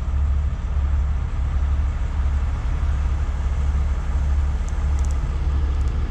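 Heavy rotator tow truck's diesel engine running steadily, a constant low drone as it powers the boom holding the lifted tractor.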